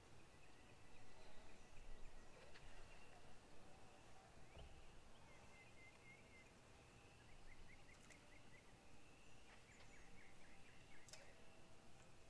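Near silence: faint outdoor ambience with a faint steady high tone, and distant bird calls that come as two short runs of quick chirps in the second half. A few faint clicks are scattered through it.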